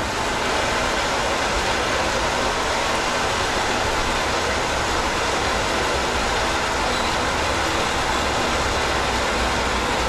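Water pouring at full pressure from a wide-open fill valve into a pressure washer trailer's 200-gallon water tank, a steady rushing noise.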